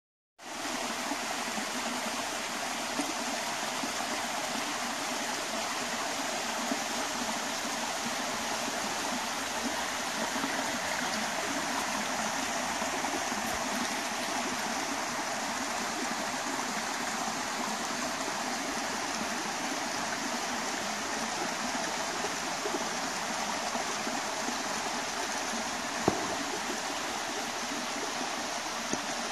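Small woodland waterfall: water running down over a rock face, a steady rushing that starts abruptly and cuts off suddenly at the end. A single sharp click sounds near the end.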